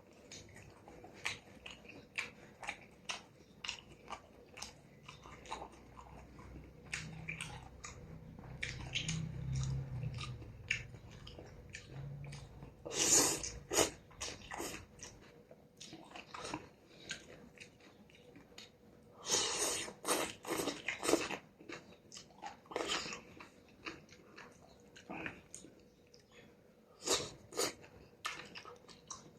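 A person eating noodle soup close to the microphone: steady chewing with many small wet clicks and smacks, and a few louder, longer bursts of noise about a third, two thirds and nine tenths of the way in.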